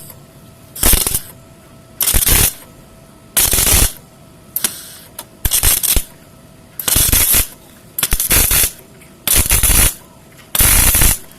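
Arc welder on steel: about eight short crackling bursts of arc, each roughly half a second long and about a second and a half apart, as the steel pieces are joined with short welds.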